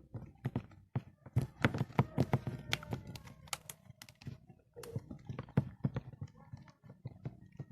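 Irregular small clicks and taps, several a second, from slime and its decorations being handled and pressed by hand.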